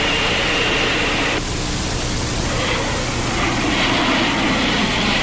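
Steady rushing noise over a low hum, its tone shifting about a second and a half in.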